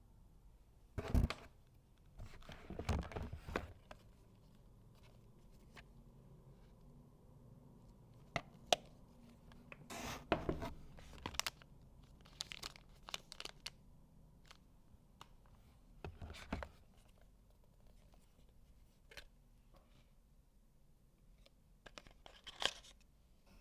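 Packaging being opened by hand: intermittent tearing and crinkling in short bursts separated by quiet stretches.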